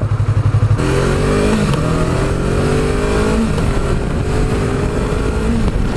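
Yamaha YZF-R3's parallel-twin engine accelerating hard, its note climbing and dropping back at each upshift. Heavy wind noise buffets a microphone that has no windscreen.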